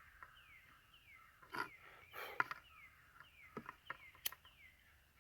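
A cigarette lighter struck a few times, with small sharp clicks and brief rasps, to melt the cut end of a nylon zip tie. Faint short chirps falling in pitch repeat about twice a second behind it.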